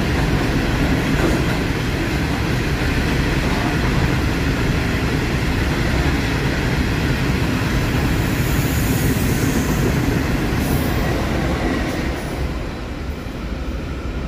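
Freight train passing through a station at speed: a loud, steady rumble of wagon wheels on the rails. It eases off in the last couple of seconds as the end of the train goes by.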